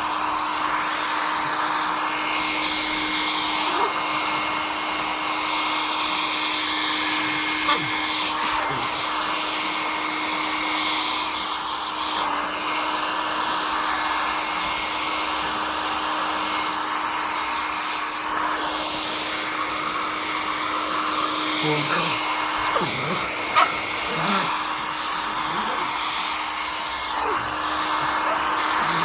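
Handheld hair dryer blowing steadily, a continuous airy rush with a steady hum and a thin high whine.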